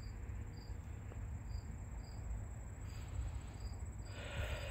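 Insects in the surrounding vegetation: a steady high trill with short, high chirps about every half second, over a low outdoor rumble. A soft breathy rush comes in near the end.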